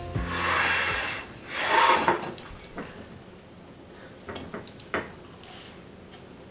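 Plates sliding across a countertop: two rough scrapes within the first two seconds, then a few light clicks.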